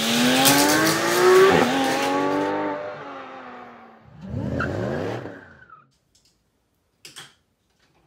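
Hot Wheels die-cast cars released from the starting gate and running down orange plastic track: a loud whirring that rises in pitch for about two seconds, then fades. A second, shorter whir comes about four to six seconds in, and a short click near the end.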